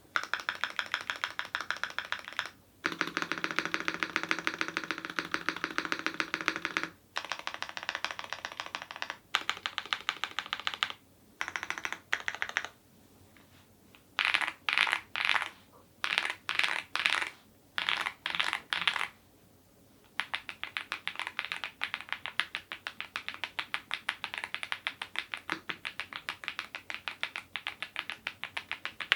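Fast typing on a YUNZII IF99 full-size mechanical keyboard with lubed Gateron Zero switches. Runs of rapid keystrokes lasting a few seconds each are broken by short pauses. Around the middle come short bursts of a few quick strokes, and a long steady run of typing follows.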